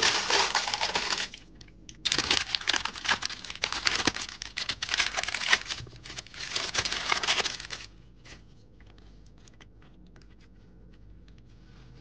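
Sheet of parchment baking paper crinkling and rustling as it is lifted off a silicone baking mat and handled while baked macaron shells are peeled from it. The rustling comes in two spells, a short one and then one of about six seconds, and stops about eight seconds in, leaving only faint small ticks.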